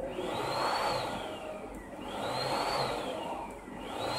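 Cold spark (cold fireworks) machine jetting in pulses after being started by remote: three surging whooshes about two seconds apart, each with a whine that rises and then falls away.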